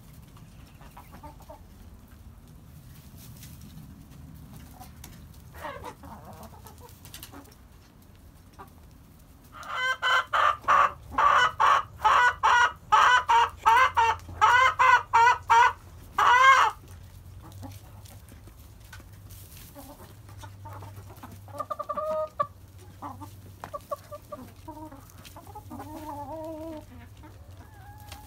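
Chickens clucking. About ten seconds in, a chicken breaks into a loud run of cackling calls, about two a second for some seven seconds, ending on one longer call. Softer, scattered clucks follow.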